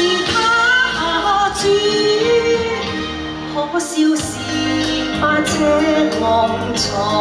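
A woman singing a song into a handheld microphone over backing music, her voice wavering and gliding on held notes. The bass of the accompaniment drops out briefly about four seconds in.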